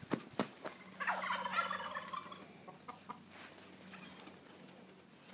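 Chickens clucking faintly, mostly in one stretch lasting about a second, starting about a second in. A few light knocks come just before it.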